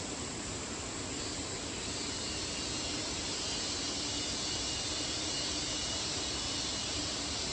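Steady rush of flowing water, growing slightly louder and brighter a second or two in, with a continuous high insect drone over it.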